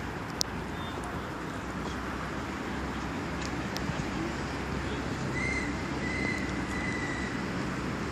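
Open-air ambience beside a football pitch: a steady hiss of wind and distant traffic, with a few faint knocks and a faint thin tone lasting about two seconds past the middle.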